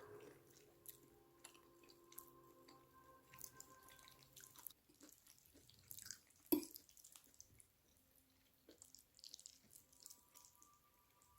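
Faint kitchen handling sounds: scattered light clicks and taps, with one sharper knock about six and a half seconds in.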